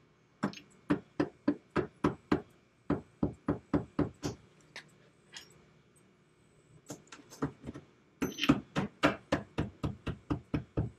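A long series of sharp knocks, about three to four a second, in two runs with a pause of a few seconds and a few stray knocks between them. The second run, near the end, is the loudest.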